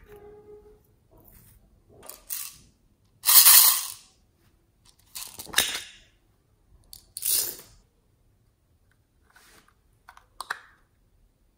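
Small plastic containers of slime add-ins handled close up: a series of short scratchy bursts of plastic rubbing and rattling, one every second or two, the loudest about three seconds in, then a couple of light clicks near the end.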